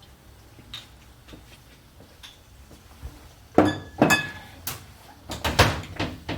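Kitchen clatter: a few soft taps, then from about halfway in a run of sharp knocks and clinks of pots, lids and utensils, some with a short metallic ring.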